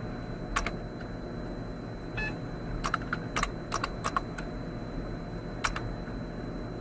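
Scattered sharp clicks, about eight in all, some in quick pairs, with uneven gaps between them, over a steady faint high tone and a low hum.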